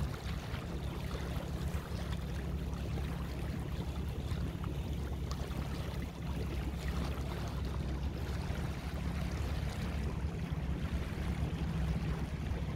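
A boat's engine running steadily under way, a low even drone, over a hiss of water and wind.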